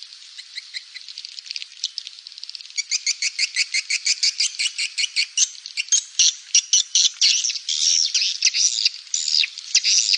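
Swiftlet call recording: rapid trains of high twittering chirps and clicks, faint and sparse at first, then quicker and louder about three seconds in, with longer chirps in the second half. It is a lure call of the kind played to draw swiftlets into a swiftlet house.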